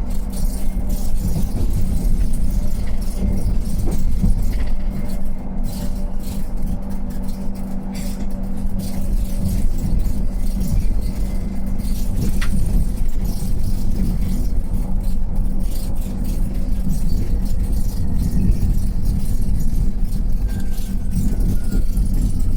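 Mercedes-Benz eCitaro G full-electric articulated bus driving between stops, heard from inside the passenger cabin. A steady low road and tyre rumble runs under an even drive hum, with small clicks and rattles of the fittings, and a faint whine shifting in pitch near the end.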